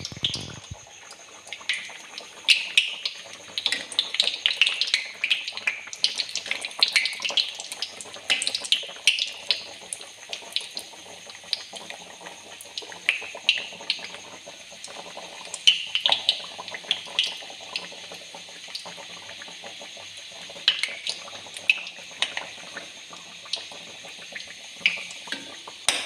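Aloo kachoris deep-frying in hot oil in a kadhai: a steady sizzle with many irregular crackles and pops.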